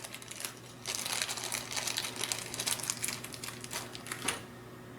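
Rapid light clicks and rattles of small plastic robot parts and tools being handled, a dense run starting about a second in and stopping near the end.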